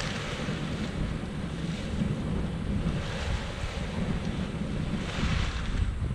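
Heavy wind buffeting the microphone, a steady low rumble with a rushing hiss that swells and eases several times.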